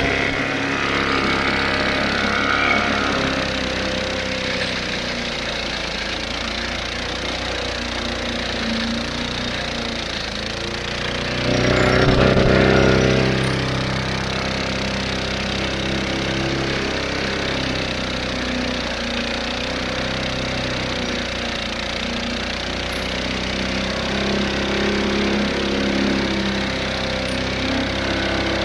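Briggs & Stratton 125cc lawnmower engine running steadily at tied-open full throttle with its fan shroud removed, the condition that overheats it. It gets briefly louder about twelve seconds in.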